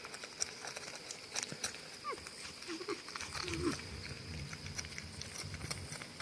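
North American porcupines eating peanuts: frequent small crunches and clicks of chewing, with a few short, high, wavering whines about two to four seconds in as the two squabble over the food.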